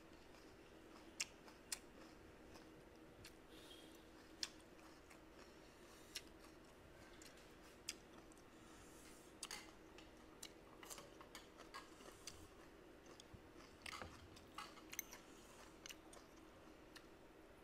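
Faint close-up mouth sounds of someone chewing a mouthful of soft braised fish and rice, with scattered small clicks and smacks. A faint steady hum runs underneath.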